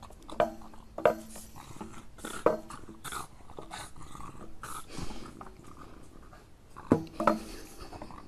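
A small dog growling and grunting in short bursts, several times over, while it tugs at a stick it is carrying, with a few sharp knocks among them.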